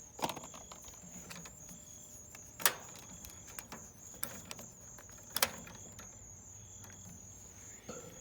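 Scattered sharp clicks and knocks of hand work on the unit, the two loudest about two and a half and five and a half seconds in, over steady pulsing cricket chirping.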